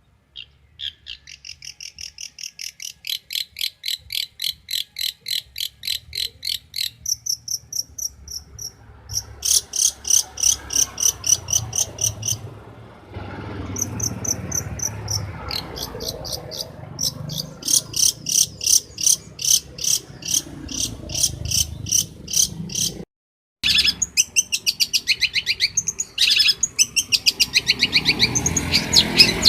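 Long-tailed shrike (cendet) singing: runs of sharp, high repeated notes at about four a second, the phrase changing every few seconds, with a pause about 13 s in and a brief cut about 23 s in.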